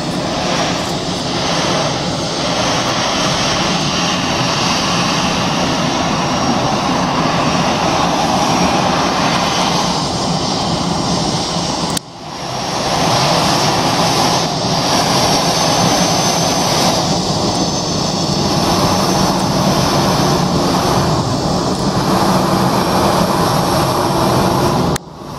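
Jet engines of an Airbus A319-111, CFM56-5B turbofans, running at taxi power: a steady, loud rushing engine noise. The sound drops out sharply for a moment about halfway through and again near the end, then comes straight back.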